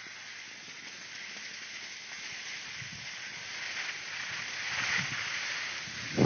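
Steady hiss of a snowboard sliding over packed snow, swelling about four seconds in, with a sudden low buffet at the very end.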